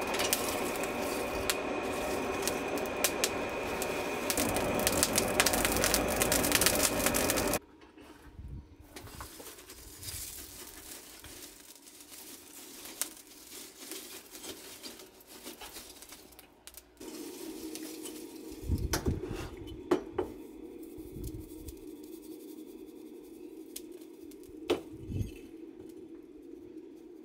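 Charcoal forge fire being lit and stoked, crackling under a loud rushing noise that cuts off suddenly after about seven and a half seconds. Quieter crackling follows, with a steady low hum in the second half and a few knocks.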